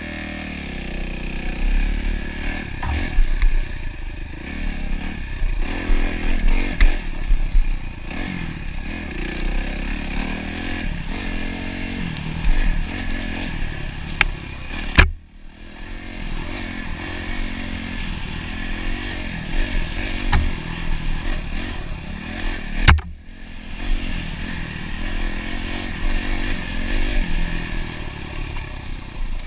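Dirt bike engine running on a trail ride, its pitch rising and falling with the throttle. Two sharp knocks, about halfway and about three quarters through, each followed by a brief dip in the engine sound.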